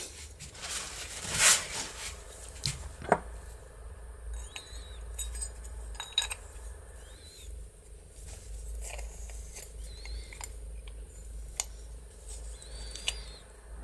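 Light, scattered clicks and taps of small metal parts: a replacement aluminium slide piece being fitted and worked in the gear housing of a window handle, over a low steady hum.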